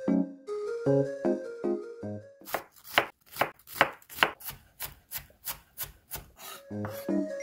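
Chef's knife finely mincing half an onion on a wooden cutting board: quick, even chopping strokes, about four a second for some four seconds, starting a couple of seconds in. Light background music plays before the chopping and returns near the end.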